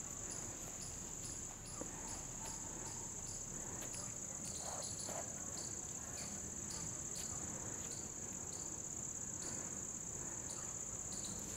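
Insects trilling in the grass and trees: a steady high-pitched drone with a regular pulse about twice a second.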